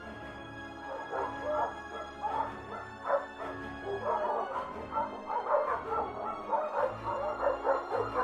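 Dogs barking and yelping, many short calls in quick succession starting about a second in, over steady background music.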